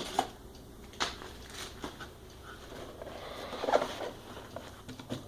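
Packing material in a box being rummaged and handled: scattered rustles, taps and scrapes, with a louder rustle a little past halfway.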